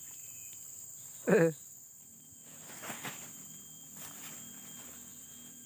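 Steady high-pitched chorus of insects, typical of crickets, with a short vocal sound about a second in and faint rustles later.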